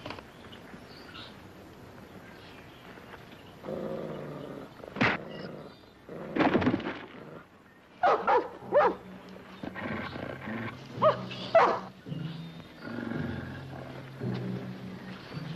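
A dog barking in a series of loud, sharp barks through the middle of the stretch. Background music with held low notes comes in under it about halfway.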